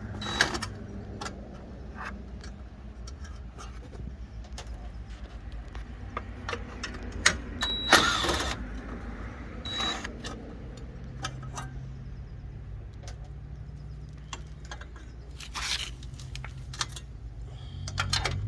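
Scattered clicks, knocks and short rattles of hand tools and screws while the Jeep Comanche's old headlight mounting screws are removed, with a couple of louder short scrapes or clatters. A low steady engine hum is underneath and grows in the second half.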